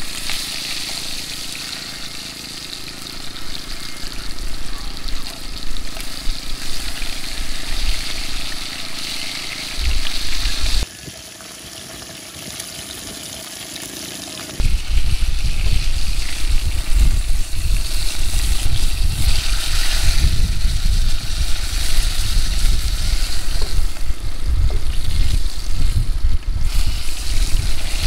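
Fish frying in hot oil in a pot, a steady sizzle. There is a quieter stretch about eleven seconds in, and from about halfway on a heavy low rumble runs under it.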